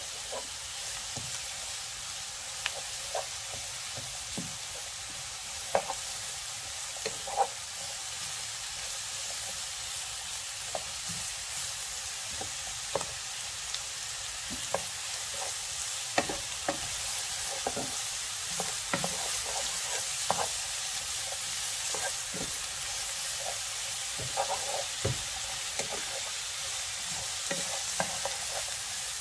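Shredded cabbage, carrot and sliced mushrooms sizzling in a hot pan as they are stir-fried, with the wooden spatula scraping and knocking against the pan every second or two.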